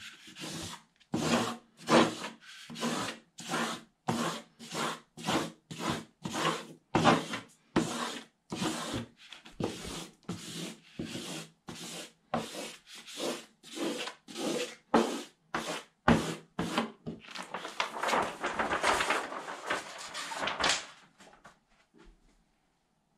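Small plastic squeegee scraped firmly over the paper covering a wall sticker, pressing it onto the wall in repeated strokes, about two a second. Near the end the strokes run together into continuous rubbing, then stop about two seconds before the end.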